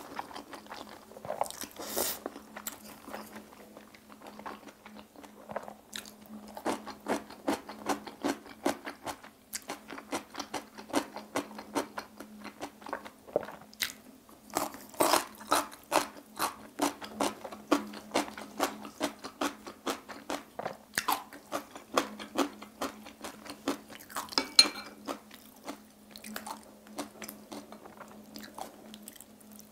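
Close-miked chewing of black-bean-sauce instant noodles: wet mouth clicks and smacks in quick succession, with a few longer slurps in between. A faint steady low hum sits underneath.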